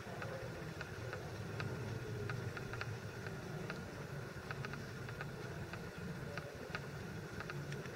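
Room tone: a steady low hum with faint, scattered ticks.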